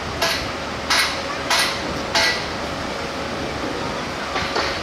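A series of sharp metallic clinks, four about two-thirds of a second apart and then two close together near the end, over a steady wash of surf.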